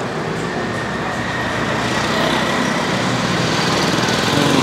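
Street traffic with a small engine running close by, getting louder near the end.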